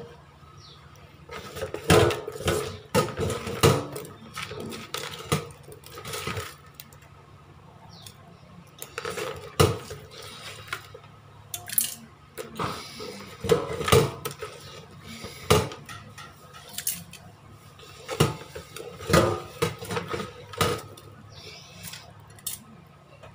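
A glass swing-top jar knocking and clinking against a stainless steel sink as a hand works fish and rice inside it: irregular clusters of sharp knocks with short pauses between them.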